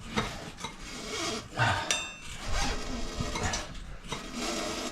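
Steel tyre levers clinking and scraping against a motorcycle wheel rim as a tyre is levered off by hand, with one sharp ringing metal clink about two seconds in.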